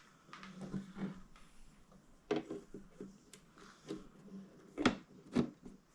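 Scattered light clicks and knocks of hard plastic being handled as a toy RC boat's hatch cover is fitted onto its hull over the battery, with the two sharpest knocks near the end.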